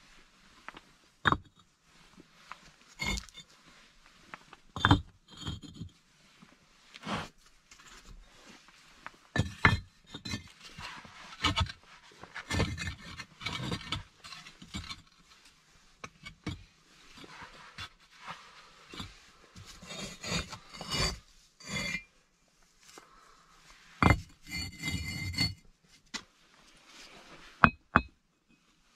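Firebricks being set and shifted by hand: sharp knocks and clinks of brick on brick, with stretches of gritty scraping and clatter as bricks and a metal plate are moved. Near the end a hatchet blade strikes a firebrick twice to split it.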